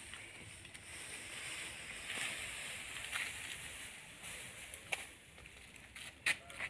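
Thin plastic sheeting of a homemade hot-air balloon rustling and crinkling as it is pulled open and handled, swelling and fading, with a few sharp snaps.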